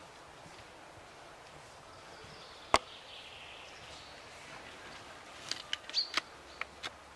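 Spring-powered bolt-action airsoft sniper rifle firing one shot, a single sharp crack about three seconds in. Near the end comes a quick run of clicks and clacks, the bolt being worked to re-cock it.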